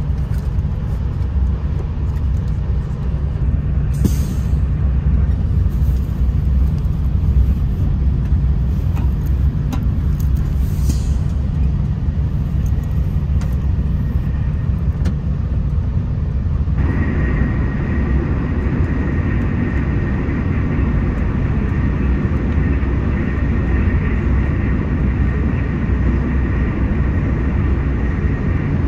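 Steady low rumble of a TGV high-speed train heard from inside the passenger car as it runs. About seventeen seconds in, the sound changes abruptly to a brighter rushing noise with a faint steady high whine.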